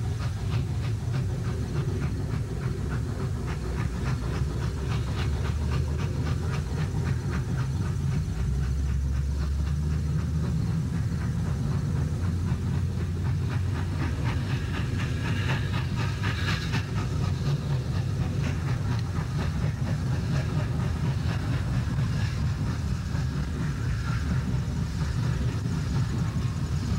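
1927 Baldwin 2-8-0 Consolidation steam locomotive moving slowly tender-first: a steady low rumble with steam hissing and rail clatter.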